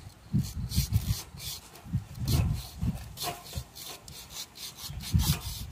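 A knife sawing and scraping through a nurse shark's rough, knife-dulling skin in irregular strokes, with dull low thumps in between.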